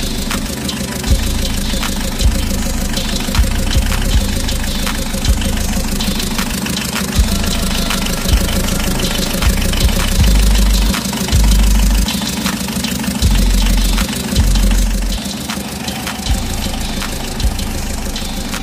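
Engine sound of a toy backhoe loader: an idling, knocking engine noise, with a low bass beat pulsing on and off underneath.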